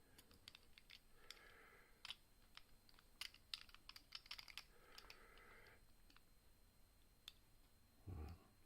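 Faint, irregular clicking and light scraping of a picking wire and a key-blank tensioner working the levers inside a four-lever Soviet oval padlock. A soft low thump near the end.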